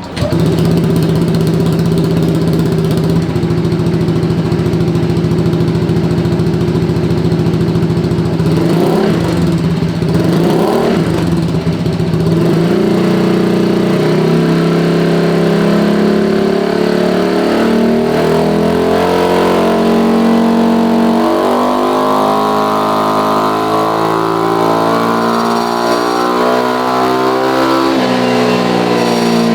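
Automatic scooter engine running through an EvoX STD carbon-steel aftermarket exhaust with its DB killer insert fitted, on a dyno. It idles evenly, is blipped twice about nine and ten seconds in, then revs climb in steps as it pulls on the rollers, easing off near the end.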